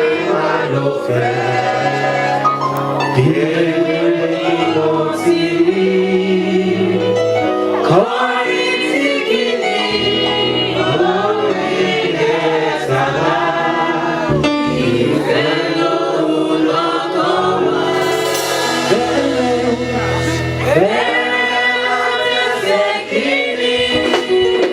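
A choir and congregation singing a Celestial Church hymn together, with sustained low accompanying notes under the voices.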